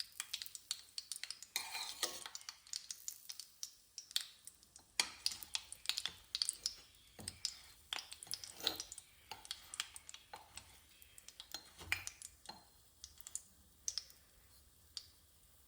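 Frying pan of hot desi ghee with coconut halves being turned and basted: irregular light clicks and taps of a spoon against the pan, mixed with the crackle of the frying ghee.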